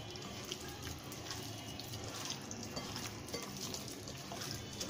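Hands squishing and kneading raw boneless chicken pieces in a wet egg-and-cornflour spice marinade in a glass bowl: a soft, continuous wet squelching with small scattered clicks.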